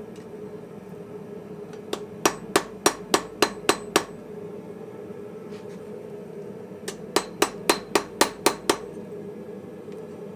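Two short runs of hammer blows on steel on a small blacksmith's anvil, about three to four strikes a second. The first run of about eight comes about two seconds in and the second of about seven comes about seven seconds in, over a steady hum.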